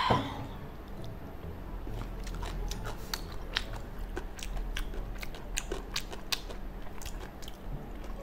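Close-miked mouth sounds of a person chewing a mouthful of spicy gopchang fried rice: wet smacks and sharp little clicks at irregular intervals. Right at the start comes one brief louder sound that falls in pitch.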